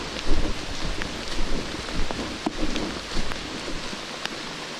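Rain falling on forest foliage: a steady hiss dotted with many small ticking drops. Under it run irregular low thumps and rumbles from walking with the camera in hand.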